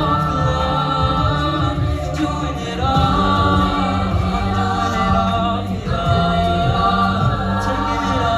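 A cappella vocal group singing wordless chords over a low bass line, the chords changing every few seconds.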